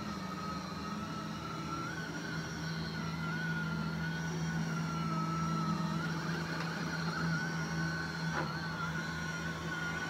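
LG Hom-Bot Square robot vacuum running on carpet: a steady motor hum under a high whine that wavers slightly in pitch, with a faint click about eight seconds in.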